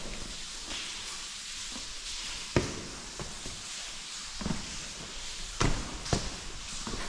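Footsteps on rocky ground, a few irregular steps over a steady hiss.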